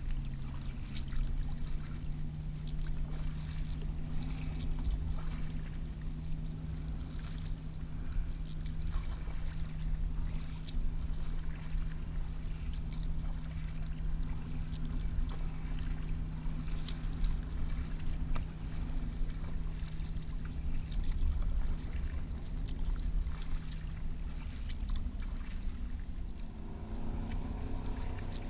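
Kayak paddle strokes splashing and dripping over the steady low drone of a motorboat engine; near the end the engine note shifts and takes on a fuller, higher set of tones.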